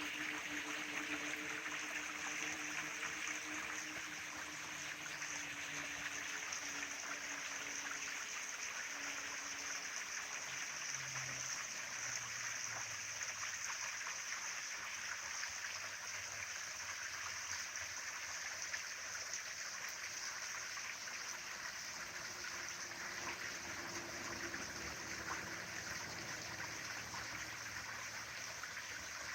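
Small mountain valley stream flowing over rocks: a steady babbling rush of water.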